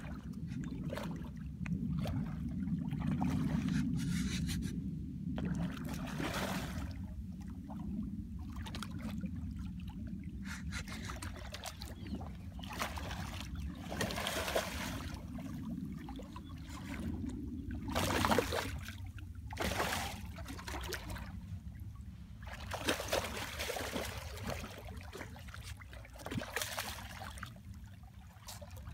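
Hooked redfish thrashing and splashing at the water's surface in irregular bursts every few seconds, over a steady low rumble.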